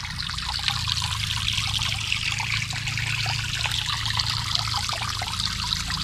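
Water from a garden hose nozzle spraying into a shallow plastic pond, with thin streams trickling down over the stone edge: a steady splashing trickle.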